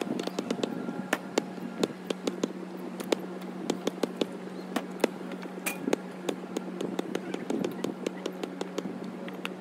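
A rapid, irregular run of sharp knocks and taps, several a second, some louder than others, over a steady low hum.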